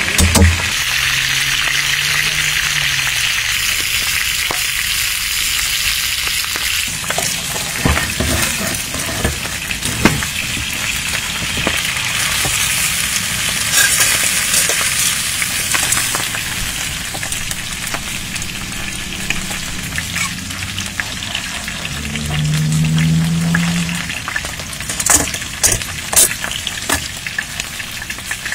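Pork belly and pork skin sizzling steadily on a hot griddle pan, with scattered clicks and knocks of metal tongs and a cleaver working the meat, a few sharper ones near the end.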